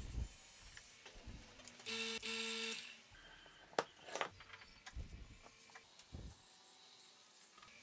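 Quiet bench-work sounds: a small power tool whirs briefly, for just under a second, about two seconds in. Then come a few sharp knocks and taps as plywood pieces are handled and set down on the bench.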